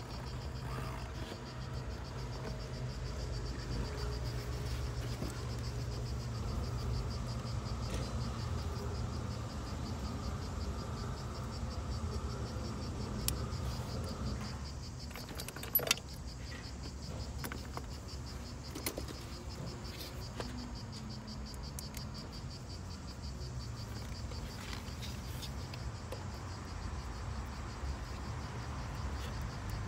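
Insects chirring steadily over a low, steady rumble, with a few small clicks and knocks, the sharpest about sixteen seconds in.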